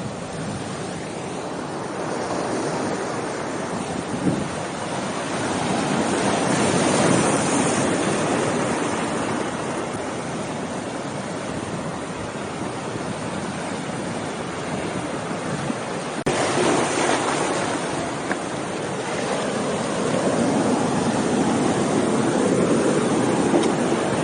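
Ocean surf washing onto a beach, the noise of the waves swelling and falling back in slow surges. About two-thirds of the way through there is a sudden click and the surf changes abruptly.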